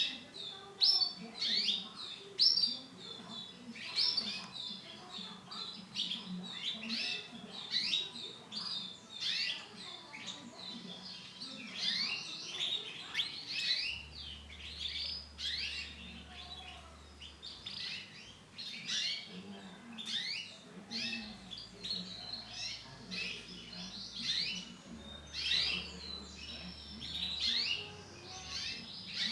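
Female canary chirping: a continuous run of short, quick chirps, several a second, with no steady song.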